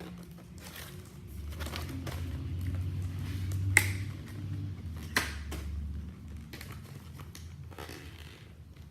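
Package of Nerf foam darts being worked open by hand: rustling and crinkling of the packaging, with two sharp clicks about four and five seconds in.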